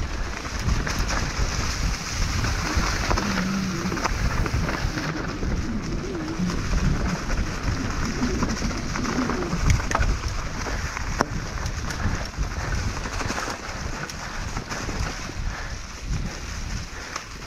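Mountain bike descending a rough trail at speed: tyres rolling over rock and gravel, with frequent knocks and rattles from the bike, over a steady rush of wind on the microphone.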